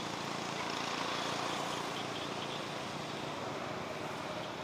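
Steady, even hum of a distant engine under outdoor background noise.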